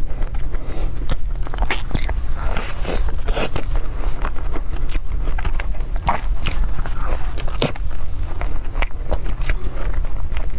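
Close-up biting and chewing of a soft chocolate-filled egg tart, picked up by a clip-on microphone. The wet mouth sounds and small irregular clicks run on without a pause, over a steady low hum.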